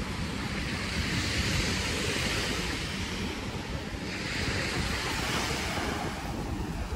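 Sea waves breaking and washing up the beach, the surf hiss swelling twice, with wind buffeting the microphone underneath.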